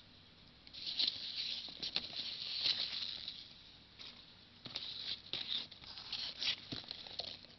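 Rustling and crinkling of packaging being handled, in irregular bursts with a few sharp clicks.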